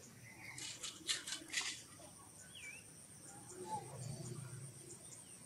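Outdoor insect drone, a steady high-pitched buzz, with a single short bird chirp about two and a half seconds in and a few brief hissy bursts in the first two seconds.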